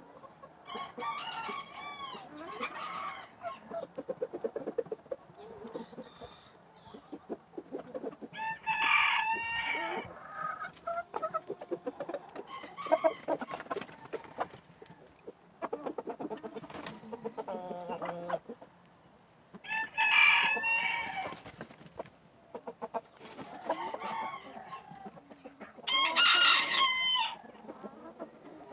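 Roosters crowing repeatedly, about six crows each a second or two long, with chicken clucking between them.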